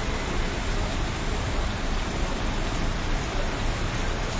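Steady rain on a wet street: an even, unbroken hiss.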